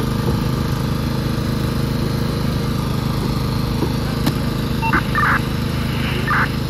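Small engine of a hydraulic rescue-tool power unit running steadily, with a few short higher-pitched bursts near the end.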